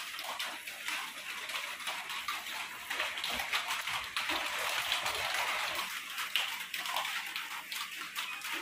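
A hand mixing a thick, crumbly masala paste moistened with mustard oil and lemon juice in a large bowl: soft squishing and scraping with many small crackles over a steady hiss.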